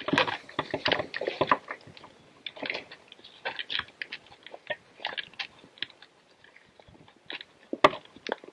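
Footsteps crunching and rustling through dry leaf litter and twigs on a woodland floor, in an irregular walking rhythm, with a sharp click near the end.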